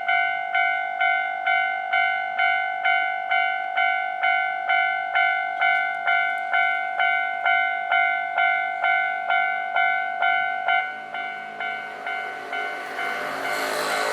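Japanese level-crossing warning bell ringing steadily, about two strikes a second. From about eleven seconds in the bell grows quieter and a train's rushing wheel noise rises, loudest near the end as the train reaches the crossing.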